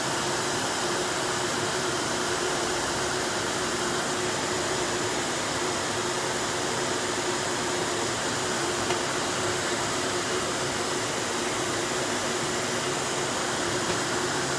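Bottle labeling machine for empty PET bottles running steadily, applying OPP wrap-around labels: an even mechanical hum and hiss with a constant low tone, and one faint tick about nine seconds in.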